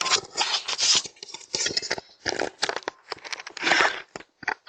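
Irregular bursts of scraping and rustling close to the microphone, several short ones and a longer one past the middle.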